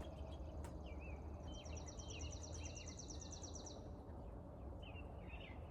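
Faint outdoor ambience: small birds chirping here and there, with a high, rapid trill starting about a second and a half in and lasting about two seconds, over a steady low hum.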